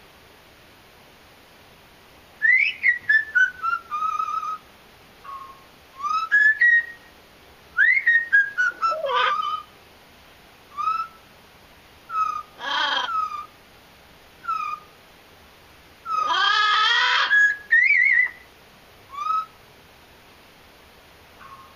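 Blue-fronted amazon parrot whistling a string of short gliding whistles with pauses between them. She gives two longer, rougher calls, one near the middle and one about three-quarters through.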